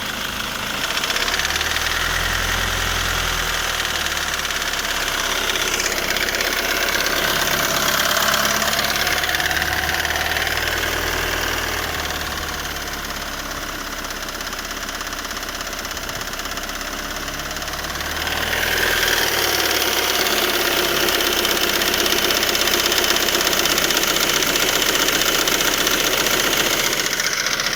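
Ford Mondeo Mk3 2.0 TDCi four-cylinder diesel running at raised revs with a knock from the crankshaft damper pulley. The pulley's rubber is worn, so its two metal halves touch and knock. The engine gets louder about a second in, eases in the middle, and rises again about two-thirds of the way through.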